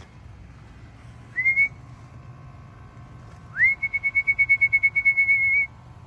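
A person's whistle, the kind a pigeon fancier uses to call racing pigeons down to the loft. It is a short rising whistle, then a longer one that rises and holds one pitch with a fast flutter for about two seconds.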